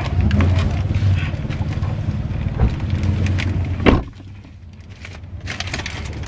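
Plastic shopping bag rustling and clothes shuffling as someone climbs into a car's driver seat over a steady low engine hum. About four seconds in the car door shuts with a loud thud, after which everything is muffled and much quieter.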